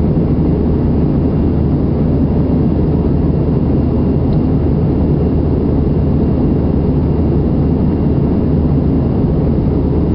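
Steady jet engine and airflow rumble inside an airliner's passenger cabin, heard at the window seat, deep and unchanging.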